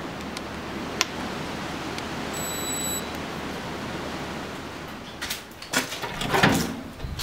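Steady shop background hiss with a single sharp click about a second in, then a run of bumps and knocks from about five seconds in as the camera is picked up and moved.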